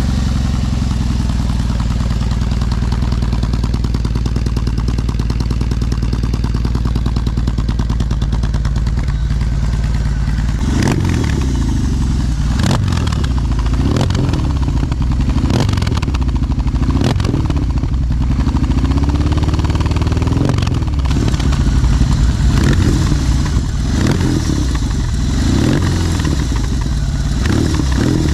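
BMW R18's 1802 cc boxer twin running through a handmade 2-into-2 full-system exhaust with spiral-baffle mufflers. It idles steadily for about the first ten seconds, then is revved with repeated throttle blips, with one longer held rev about two-thirds of the way through.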